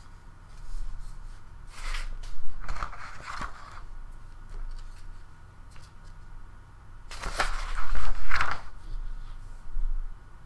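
Paper rustling in two bouts, about two seconds in and again about seven seconds in.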